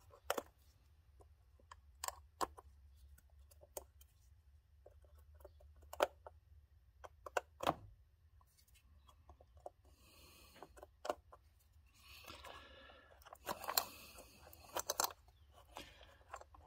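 Scattered light plastic clicks and handling noises as the ignition coil pack connectors on a four-cylinder engine are unlatched and pulled off by hand, with two longer stretches of rustling and scraping in the second half over a faint steady low hum.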